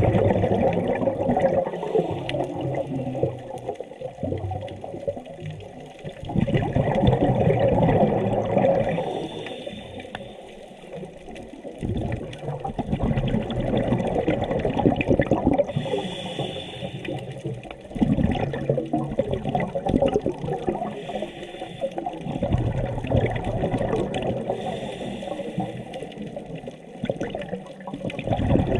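Underwater recording of a scuba diver breathing through a regulator: exhaled bubbles rush and rumble in surges about every five to six seconds, with a short hiss between them.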